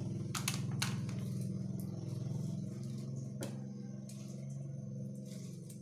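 A steady low drone with a few sharp clicks of kitchen scissors snipping small fish.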